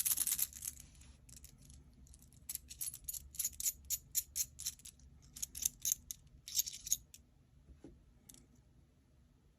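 Aluminium gear fidget toy being worked by hand, giving sharp metallic clicks: a quick rattling cluster at the start, then a run of separate clicks about three a second that stops about seven seconds in.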